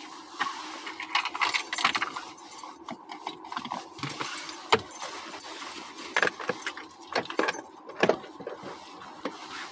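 Small metal objects jingling and rattling in irregular clicks, thickest through the middle of the stretch and thinning near the end.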